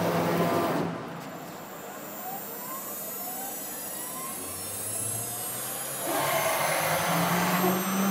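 CNC router spindle cutting into an aluminium bar. The cutting is loud for about the first second, then drops off while the head repositions, with several rising motor whines. The cutting noise returns about six seconds in over a steady low hum.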